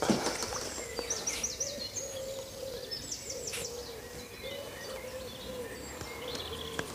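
Birdsong: short high chirps and quick trills, over a low wavering call that repeats steadily.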